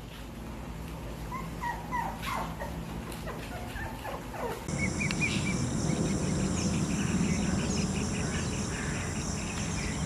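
Young puppies whimpering and yipping in short, high squeaks over the first few seconds. Then the background changes abruptly to a steady outdoor sound, a high hiss with a fast regular pulsing.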